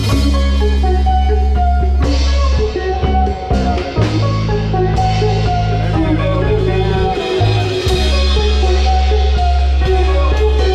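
Live rock band jamming on electric guitars, bass and drum kit, with deep held bass notes that change every couple of seconds under the guitars.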